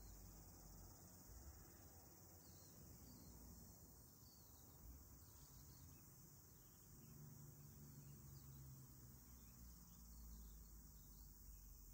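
Faint, steady high-pitched insect chorus, with a soft low rumble underneath.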